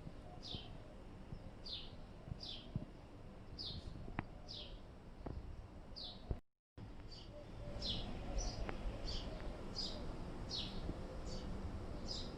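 A small bird repeating a short, high, downward-sweeping chirp about once or twice a second. The sound cuts out completely for a moment about six and a half seconds in.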